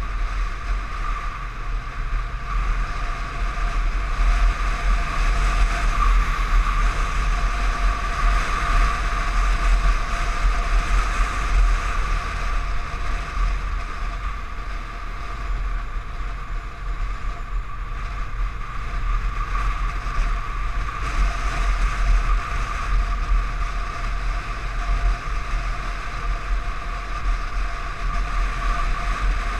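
Wind buffeting a motorcycle-mounted camera at highway speed, a heavy steady rumble with the hiss of rushing air and road noise, over a steady high whine.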